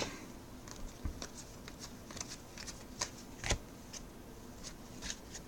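2016 Donruss baseball cards being handled and flipped through one by one: faint sliding and scattered light taps of cardboard, with a few sharper clicks about one and three seconds in.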